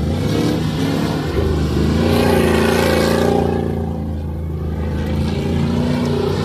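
Pickup truck engine revving hard and held at high revs, the pitch wavering up and down, as the 1997 Chevrolet Silverado spins donuts in a dry dirt-and-grass field, its rear tyres churning up dust.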